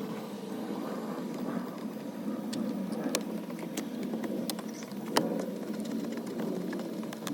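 Scattered small clicks and taps of plastic trim and parts being handled in the truck's cab, over a steady hum, with one sharper click about five seconds in.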